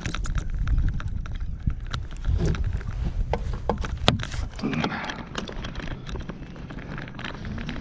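Fishing reel and rod-handling clicks and knocks, irregular and scattered throughout, over a low rumble, while a fish is played on a bent rod.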